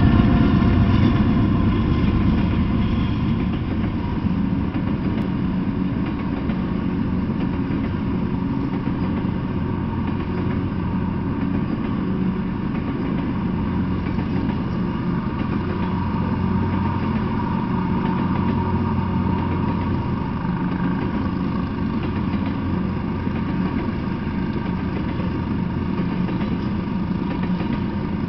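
Freight train passing with a BNSF diesel locomotive's engine running, loudest in the first few seconds. After that comes a steady low drone and rumble as the train rolls by.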